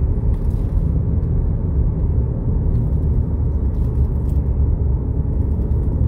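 Steady low rumble of a car on the move, heard from inside the cabin: engine and tyre noise.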